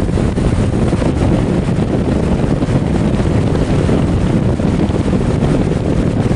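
2005 Goodman GSH13 heat pump outdoor unit running: a steady, loud rumble of its fan and compressor, with air rushing across the microphone.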